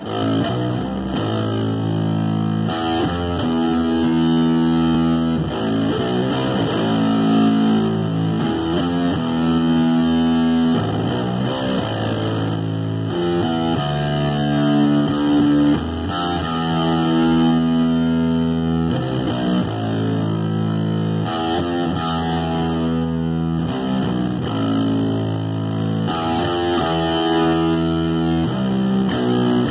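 Electric bass guitar played through distortion, a riff of held notes, each lasting a second or two.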